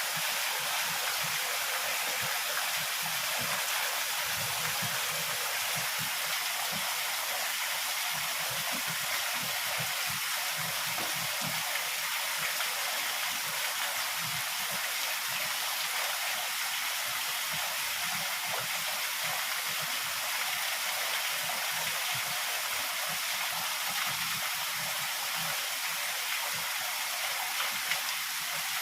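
Heavy rain pouring down steadily, a dense even hiss without breaks.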